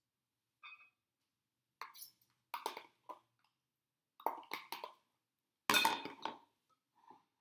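Metal spoon scraping and tapping, first inside a plastic food container as its contents are scooped out, then against a ceramic mixing bowl. It comes as a string of short scrapes and clinks, the longest and loudest scrape a little after halfway.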